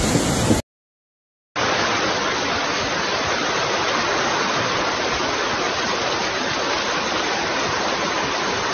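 Loud rushing of muddy floodwater that cuts off abruptly under a second in. After about a second of dead silence, a steady rush of torrential hurricane rain and floodwater runs on unchanged.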